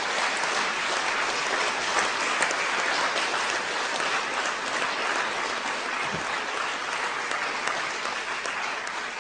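An audience applauding steadily, easing off slightly near the end.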